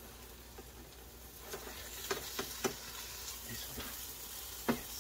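Pancake batter with ham frying in a skillet, a faint sizzle, then from about a second and a half in a slotted spatula scraping and tapping in the pan as the pancake is worked, a series of short clicks.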